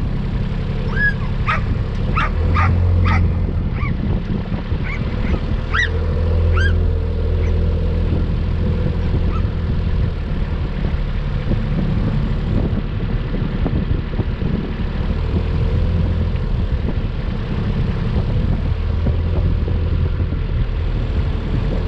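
A farm vehicle's engine running steadily, with a dog barking and yipping several times in short, sharp calls during the first seven seconds or so.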